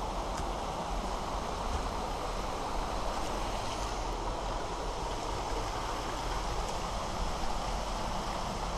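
Steady rush of flowing water from a mountain stream or waterfall: an even hiss with a deep rumble beneath it.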